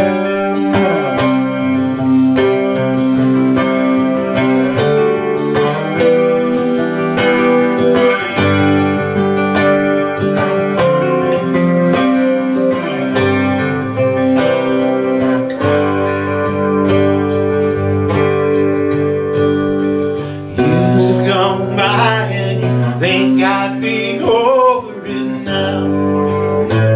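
Small band playing live: acoustic and electric guitars holding sustained chords, with a wavering, bending melody line coming in about three quarters of the way through.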